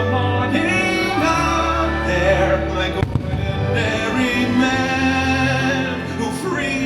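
Fireworks show soundtrack: swelling music with singing, with firework bangs mixed in.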